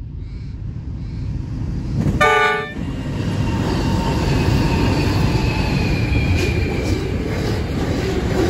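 Pacific National NR class diesel-electric locomotives leading a freight train past at speed, their rumble growing louder as they approach. There is one short horn blast about two seconds in, the loudest moment, and then the wagons roll by with a steady rumble.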